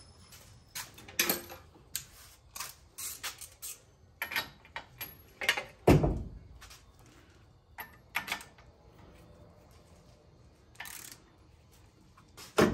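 Scattered metal clanks, knocks and clicks of hand tools against steel suspension parts on a pickup's front spindle, with one heavy thud about six seconds in and a sharp clank near the end.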